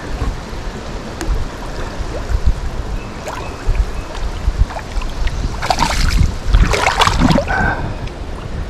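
Creek water sloshing and splashing around a person wading through it, with a steady low rumble on the microphone; two louder splashes come about six and seven seconds in.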